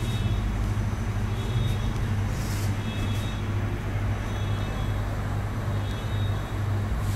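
Steady low hum of refrigerated drinks display cases, the compressors and fans running.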